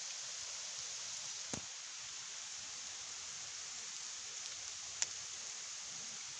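Heavy rain coming down in a steady hiss. Two sharp ticks stand out, one about a second and a half in and a louder one about five seconds in.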